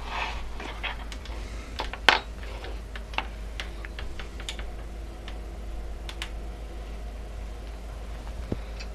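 Irregular light clicks and taps of plastic and metal parts being handled as the Ender 3 3D printer's front display unit is picked up and set against the frame, with one sharper knock about two seconds in, over a low steady hum.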